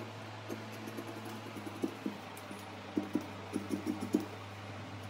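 Tailor's scissors snipping through cotton blouse fabric along chalk lines, a run of short irregular cuts that bunches up about three seconds in, over a steady low hum.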